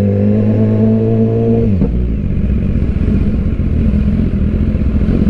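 BMW S1000RR inline-four motorcycle engine held at steady revs, the pitch creeping up slightly. About two seconds in the throttle closes: the revs drop and it runs on at low revs with a rougher, uneven sound as the bike slows in traffic.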